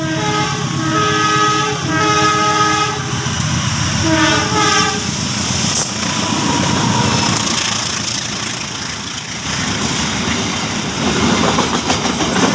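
Locomotive horn sounded in a quick string of short blasts, several notes at once, over the first three seconds, then once more about four seconds in. The train then rumbles past with wheels clattering on the rails.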